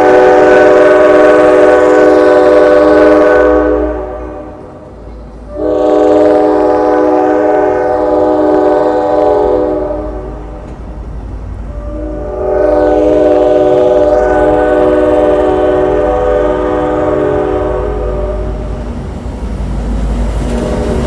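Train horn of an Amtrak NPCU, a de-powered F40 cab unit, sounding three long blasts: the first two about four seconds each and the third longer, fading near the end. The low rumble of passenger cars rolling past runs underneath.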